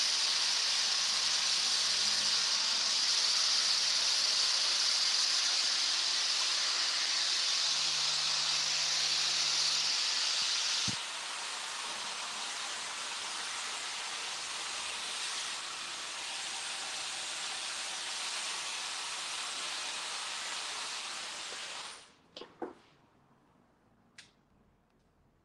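Hair dryer with a diffuser attachment blowing a steady loud hiss of air; it drops to a lower level about halfway through, then cuts off suddenly near the end, followed by a few light clicks.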